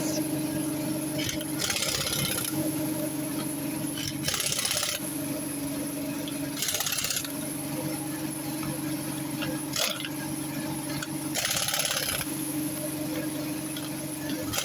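Small gasoline engine driving an air compressor, running steadily at full throttle with its fuel petcock shut off, so it is running only on the fuel left in the carburettor. Short bursts of hiss come every few seconds.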